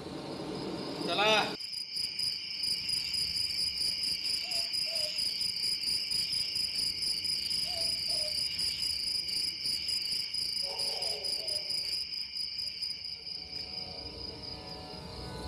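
Crickets chirping steadily, a night-time stage sound cue that starts abruptly right after a man's brief spoken word about a second in, and slowly fades toward the end.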